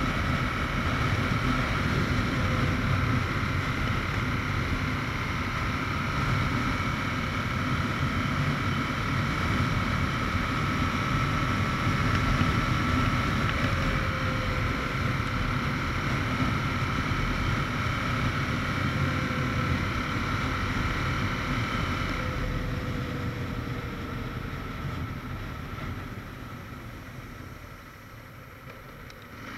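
Aprilia RSV 1000 R's 60° V-twin engine running under way, heard from onboard with wind rushing over the microphone. Over the last several seconds the engine note and wind fade as the bike slows through the lower gears.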